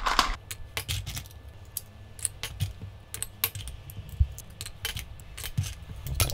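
Boiled cockle shells clicking and clinking against each other and a dish as they are handled and pried open, in quick irregular clicks.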